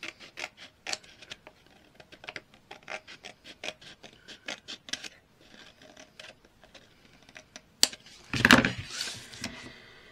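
Scissors snipping through patterned craft paper in quick short cuts, several snips a second, trimming a thin sliver off the edge. Near the end, a sharp click and then a louder thump with a paper rustle.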